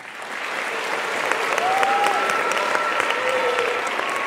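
Applause from many people clapping, swelling in over about the first second and then holding steady.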